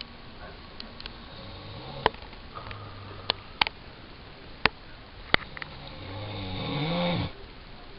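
A sleeping man snoring: a couple of soft low snores, then a louder snore that builds and rises in pitch near the end and cuts off suddenly. Several sharp clicks come between the snores.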